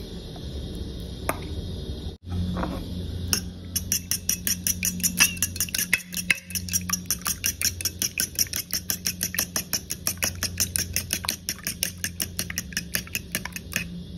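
A metal fork beating eggs in a bowl: rapid, regular clinks of the fork against the bowl, about five a second, starting a few seconds in. A steady low hum runs underneath.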